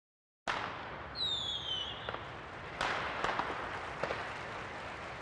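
Fireworks going off: sharp bangs of bursting shells, about four in all, with a whistle that falls in pitch for under a second early in the display.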